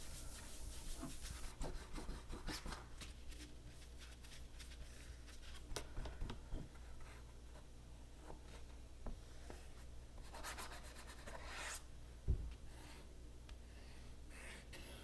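Faint scratching and rubbing of a paintbrush working paint across paper, with light ticks. Near the end the paper is shifted and a sheet is laid down with a soft thump.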